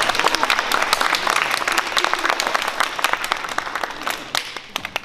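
Audience applauding, dying away to a few scattered claps near the end.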